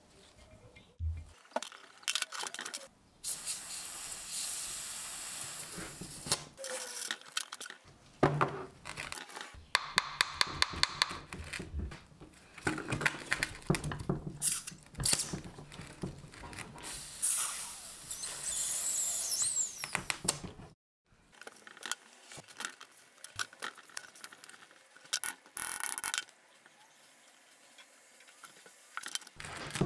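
Compressed-air blow gun hissing in long bursts into a rusty brake caliper's fluid port to force the piston out of its bore. Clinks and knocks of the metal caliper being handled come in between, with a quick run of clicks near the middle.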